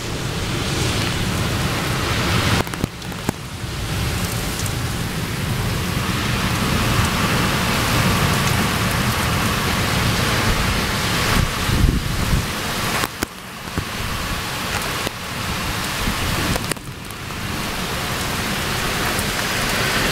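Rain pouring down in a summer thunderstorm: a loud, steady hiss with a low rumble underneath, dipping briefly a few times.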